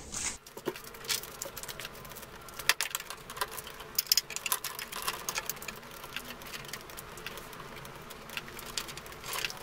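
New motorcycle roller drive chain being handled, laid over the sprockets and pulled taut, its links clicking and rattling irregularly.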